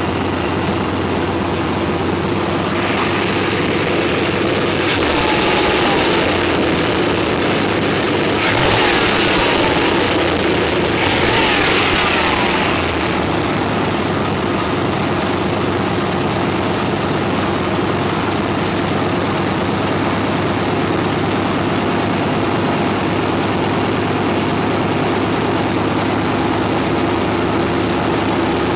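Chevy 350 small-block V8 with throttle body injection running steadily at idle, its engine speed and loudness rising for a few seconds in the first half before settling back.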